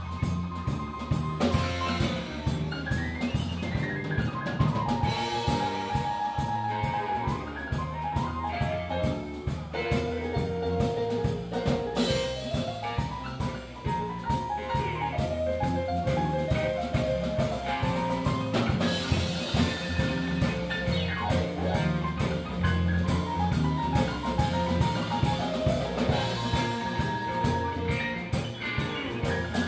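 Live blues band playing an instrumental break: electric guitar lead lines with bent notes, with harmonica, over drum kit and electric bass.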